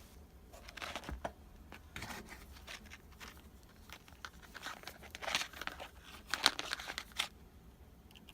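Rustling and scraping handling noise in irregular bursts as the multimeter and its test probes are handled at the water heater's lower element, to test it for continuity. The loudest bursts come about two-thirds of the way through.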